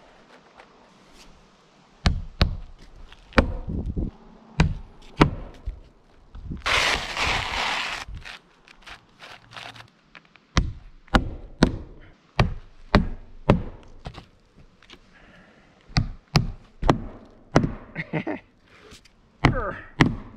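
Hammer driving roofing nails through asphalt shingles into the wooden roof deck: sharp knocks in irregular runs of two to four blows with short pauses between. About seven seconds in there is a second or so of scraping rustle.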